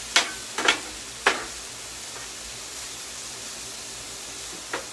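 Cauliflower rice and chicken sizzling steadily on a Blackstone flat-top griddle, with metal spatulas clacking and scraping on the steel top three times in the first second and a half and once more near the end.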